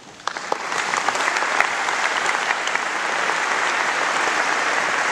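Audience applause: a few separate claps about a third of a second in, quickly building into steady clapping from a large audience.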